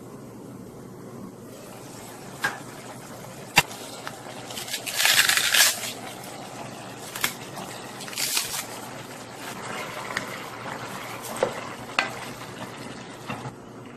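Cabbage leaves being torn apart by hand over a simmering pot of marinated duck: two crisp tearing bursts, about five and eight seconds in. A sharp clack comes a few seconds before the first one, and a wooden spatula knocks against the pot near the end.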